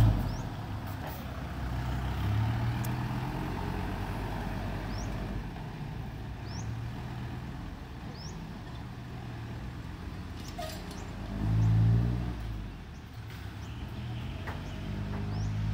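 Dump truck's Hino J07C six-cylinder diesel engine driving off, its low note rising and falling as it pulls away, with a louder swell of power about twelve seconds in. Faint short high chirps sound now and then over it.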